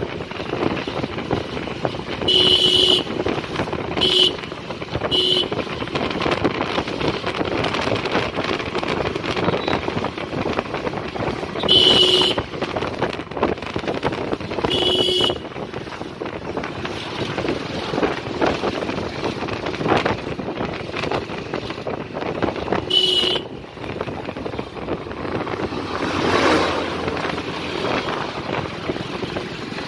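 Wind buffeting the microphone and road and engine noise from a moving two-wheeler passing a line of trucks. A horn sounds in short beeps about six times, one of them longer.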